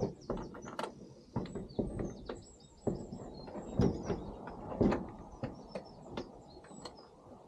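Scattered knocks and clunks of a car door being manoeuvred onto its hinges, with small birds chirping in the background.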